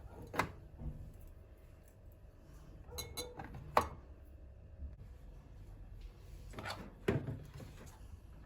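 Dishes and kitchen utensils being handled: about six short knocks and clinks, spread out with pauses between them, over a faint steady hum in the middle seconds.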